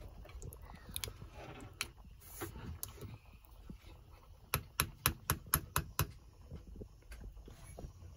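A spoon stirring stew in a stainless steel camp pot, with light scraping and small knocks against the metal, then a quick run of about eight sharp taps on the pot midway through.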